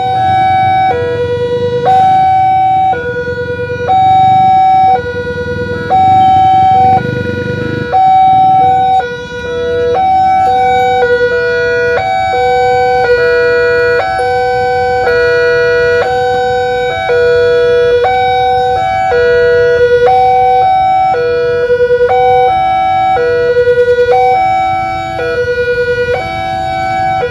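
Railway level-crossing warning alarm: an electronic two-tone signal alternating between a higher and a lower tone, each held about a second. It warns that a train is approaching with the barriers down.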